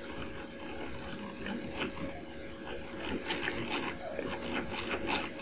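Irregular clicks and taps from operating a grandMA1 lighting console's keys and controls, coming thicker from about two seconds in, over a faint steady hum.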